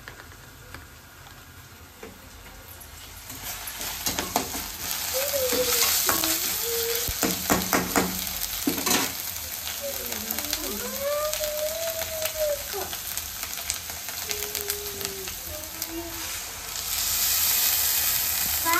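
Shredded vegetables sizzling as they stir-fry in a steel wok, with a spoon clinking and scraping against the pan. The sizzling builds up a few seconds in and swells louder near the end as the dark sauce is poured in.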